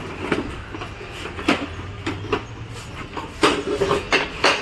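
A series of irregular knocks and clatters, coming thickest and loudest in the last second or so.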